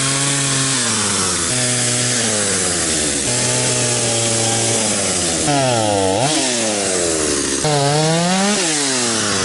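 Stihl two-stroke chainsaw cutting through a log at full throttle. Its engine pitch holds steady, then twice in the second half sags and climbs again as the chain works through the wood.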